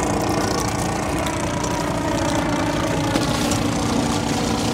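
Small boat engine idling steadily.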